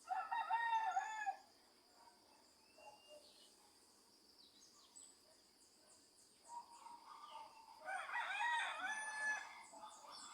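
A rooster crowing twice, once right at the start and again about eight seconds in, each crow lasting over a second. Underneath runs a steady high insect drone, with scattered faint bird chirps.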